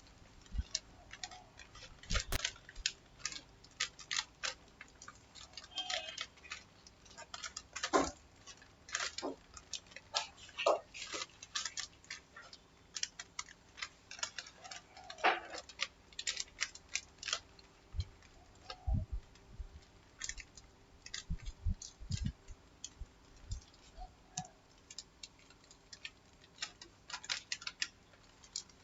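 Irregular, scattered clicking of a computer mouse and keyboard, a few sharp clicks at a time with short pauses between.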